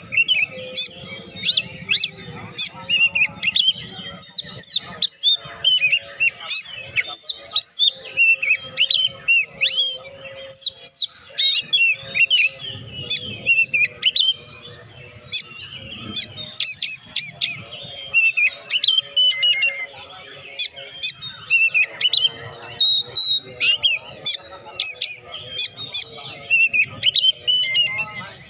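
Oriental magpie-robin (kacer) in full, continuous song: a rapid, unbroken stream of short, varied whistled notes mixed with sharp clicking notes.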